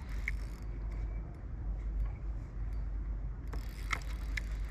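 Fishing reel ratcheting and clicking under load while a hooked king salmon is fought, with a few sharper clicks near the end, over a steady low rumble.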